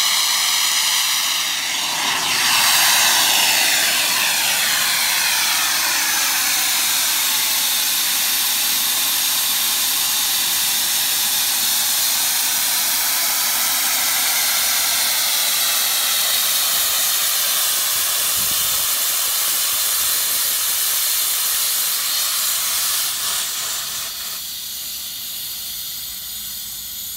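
Steam rushing out of an 1899 Locomobile steam carriage's boiler during a blowdown: a loud, steady hiss of pressurised steam venting through the blowdown valve, purging scale and impurities from the boiler. Near the end the hiss drops off sharply to a weaker one.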